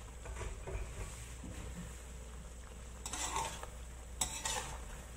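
Cooking utensils stirring vegetables and tofu through simmering coconut-milk curry in a pan, with scraping noises about three seconds in and a sharp clack of the utensil against the pan a second later.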